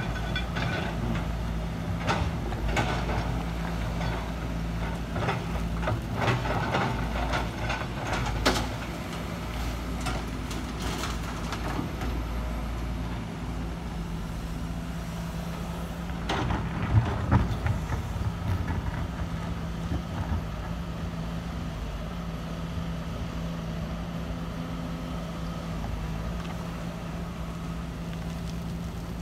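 Sumitomo SH210 excavator's diesel engine running steadily as it digs laterite and loads a dump truck. Clattering of soil and stones from the bucket comes through in the first ten seconds and again a little past halfway.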